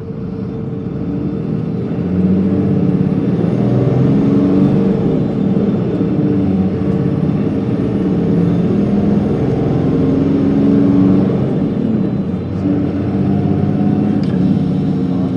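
Diesel engine of an Isuzu Erga city bus (PKG-LV234L2), heard from inside the passenger cabin. It grows louder over the first two seconds as the bus accelerates, then runs on under load, its engine note rising and falling in pitch.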